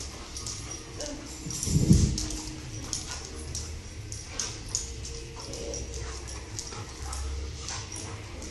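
Two dogs play-wrestling on a hard smooth floor: many quick clicks of claws on the floor, a brief dog whine, and one loud low thump about two seconds in.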